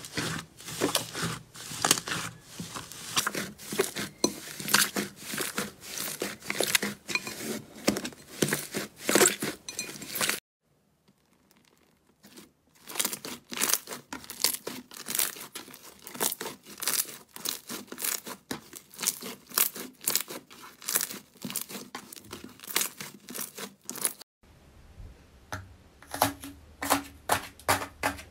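Hands stretching, kneading and pulling apart slime, making a dense run of sticky crackles and tearing sounds. It breaks off to near silence for about two seconds around ten seconds in, then goes on as another slime is squeezed. Near the end a slime studded with foam beads is pressed, with a faint low hum underneath.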